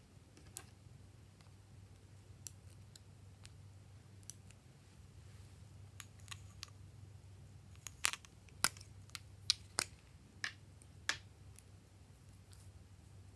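Glossy slime being kneaded and pressed by hand, giving off scattered sharp clicks and pops, with a run of louder pops from about eight to eleven seconds in.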